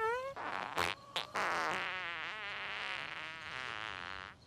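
A mouth noise blown with the lips pressed against a cupped hand: after a short rising squeak, a long buzzing raspberry whose pitch wobbles, ending shortly before the end.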